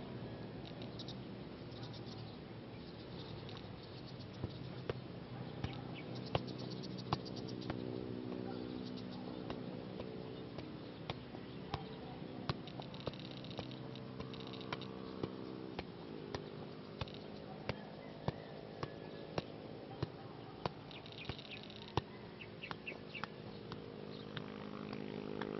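A football being juggled: short sharp taps of the ball against foot and body, roughly one to two a second, over a steady low drone and faint high chirps.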